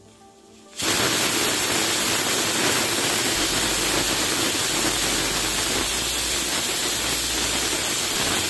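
Pressure cooker whistling: steam jets out from under the weighted valve in a loud, steady hiss that starts suddenly about a second in and holds for some eight seconds, the sign that the cooker has reached full pressure.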